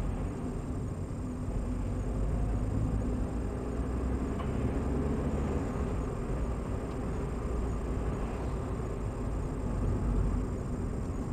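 Steady road and engine noise of a car driving at about 40 km/h, heard inside the cabin through a dashcam microphone, sped up about 1.75 times.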